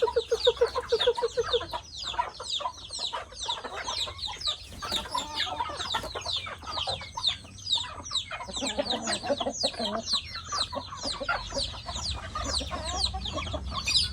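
A flock of village chickens calling all at once during feeding: a dense stream of short, high, falling chirps throughout, with clucking underneath and a quick run of low clucks at the start.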